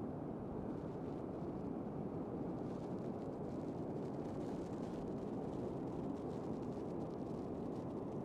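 Strong wind buffeting the microphone in a steady, low rumble, with a faint hiss of shallow surf washing over the sand from a few seconds in.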